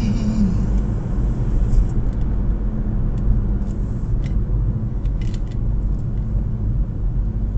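Steady low rumble of a moving road vehicle, with a few faint ticks.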